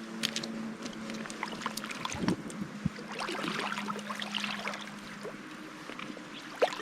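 Creek water running, with scattered clicks and knocks throughout and a faint steady hum that fades out about five seconds in.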